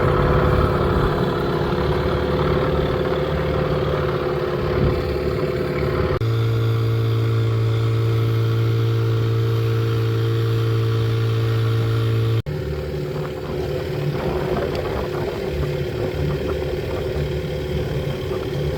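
A boat engine running steadily with an even hum. The sound changes abruptly about six seconds in and again about twelve seconds in: a smoother, steadier hum in between.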